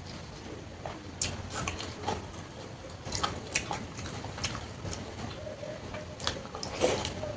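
A person eating panta bhat (watery fermented rice) with fried sides: chewing, with short wet smacks and clicks scattered irregularly through.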